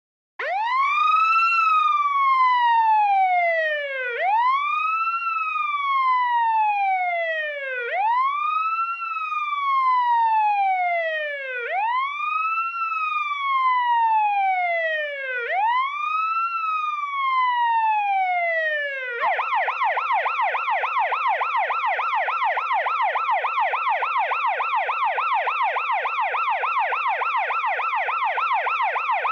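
Police car siren sounding a slow wail, rising quickly and falling slowly five times, each cycle about four seconds. About two-thirds of the way through it switches to a fast yelp, about three sweeps a second.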